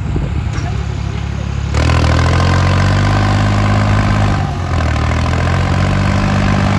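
New Holland 3630 tractor's diesel engine running steadily under load while pulling a tillage implement through dry soil. The sound gets suddenly louder about two seconds in, and the engine note sags briefly past the middle, then steadies.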